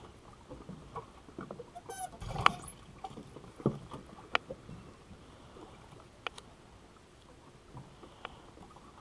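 Scattered light clicks and knocks of fishing tackle being handled in a boat: rod, reel and jig against the gunwale, with a brief run of fast ticks and the loudest knock about two and a half seconds in.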